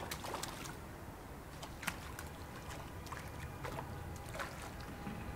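Light splashing at the water surface where a fish swirls, as short sharp splashes scattered over a steady low rumble, one louder splash about two seconds in.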